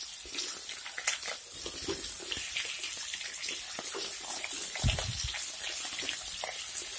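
Cut potatoes sizzling in hot oil in a kadai while they are stirred, with scattered pops and ticks and the scrape of the spatula against the pan. A single low thump about five seconds in.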